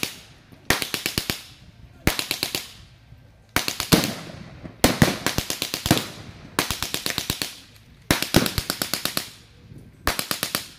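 Wheeled, shield-mounted machine gun firing blanks in about seven short bursts of rapid, evenly spaced shots, roughly ten a second, each burst trailing off in an echo.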